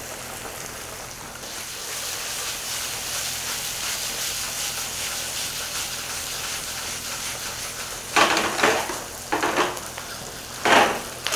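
Diced onions sizzling in oil in a stainless steel sauté pan, a steady frying hiss. Near the end come a few louder, short bursts of stirring noise as the onions are moved around the pan.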